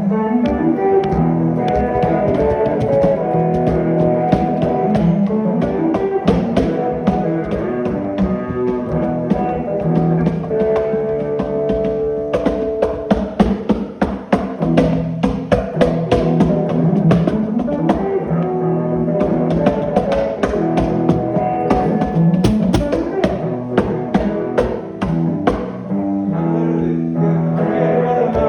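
Instrumental music with guitar and a steady drum beat.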